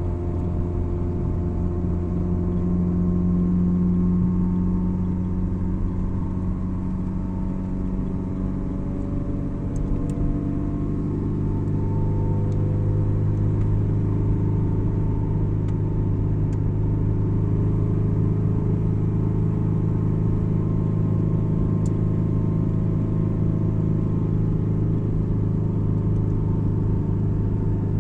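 Car engine and road noise heard from inside the cabin while driving, a steady low drone whose engine note changes about ten seconds in.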